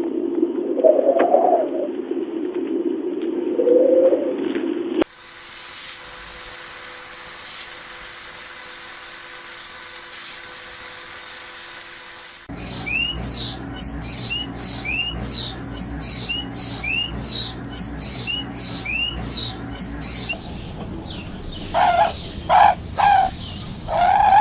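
A dove cooing in low, repeated phrases. About five seconds in it cuts to a steady hiss with a faint hum, then to a small bird chirping short rising notes about one and a half times a second. Near the end, geese start honking loudly.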